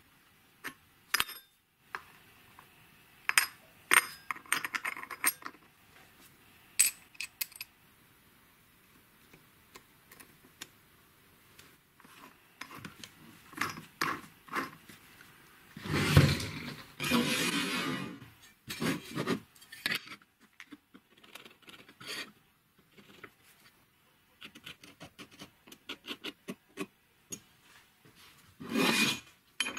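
Metal chainsaw clutch parts being handled by hand: scattered clicks and clinks as the sprocket comes off and a wheel is fitted, with two longer rubbing scrapes, one around the middle and one near the end.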